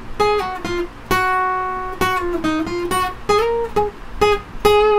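Steel-string acoustic guitar, tuned down a half step, playing a single-note lead phrase: picked notes with slides between frets, ending on a long ringing note near the end.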